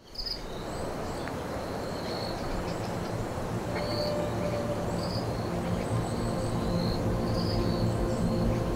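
Cinematic background music fading in and slowly building, with sustained low tones entering a few seconds in over a bed of hiss. Short high chirps recur throughout.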